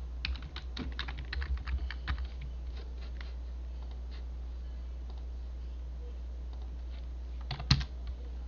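Computer keyboard typing: a quick run of key clicks in the first two seconds, then a short, louder cluster of clicks near the end, over a steady low hum.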